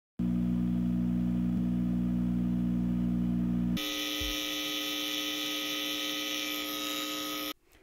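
A steady, low electrical mains hum. About four seconds in it switches to a brighter, harsher 120 Hz buzz with many overtones, which cuts off shortly before the end. These are the hum and buzz of an audio system.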